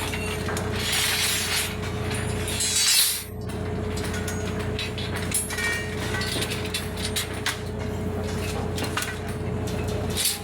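Construction-site work noise: a machine's steady hum under scattered metallic clinks and knocks, with a louder hissing scrape building from about one second in and cutting off sharply a little after three seconds.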